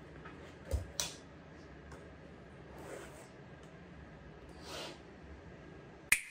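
Faint room tone while a person settles onto a bench: a light thump and a click about a second in, two soft breathy swells, and a sharp click near the end.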